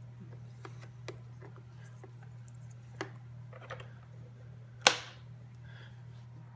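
Plugs and cord being handled while the sewing machine is plugged back in: a few light clicks and taps, then one sharp, loud click about five seconds in. A steady low hum runs underneath.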